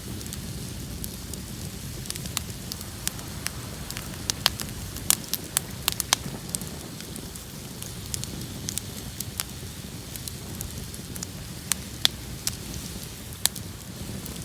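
Outdoor bonfire burning: irregular sharp crackles and pops over a steady low rush of the flames.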